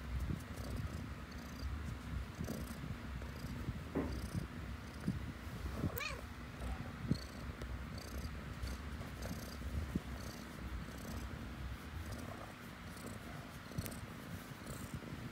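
Black-and-white domestic cat purring steadily, held close, with one short high call about six seconds in.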